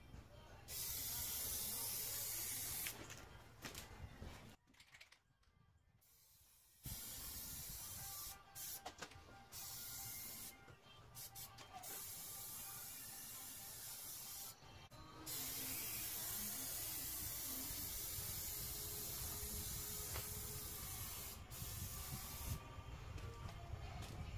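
Aerosol can of Plasti Dip rubber coating spraying in several hissing bursts with short pauses between, the longest lasting about seven seconds.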